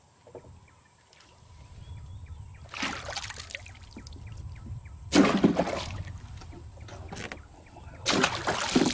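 A toman (giant snakehead) thrashing and splashing at the water surface beside the boat as it is hand-lined in on a topwater lure: three bouts of splashing, the loudest about five seconds in.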